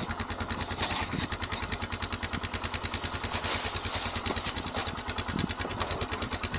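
ATV (quad) engine running at low speed, its firing an even rapid pulse of about ten beats a second, while pulling a heavily loaded trailer slowly.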